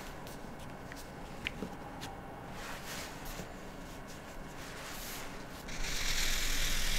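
Faint rustles and small ticks of a hand moving over paper, then about six seconds in a yellow chisel-tip highlighter marker starts scratching steadily across the paper as it colours in.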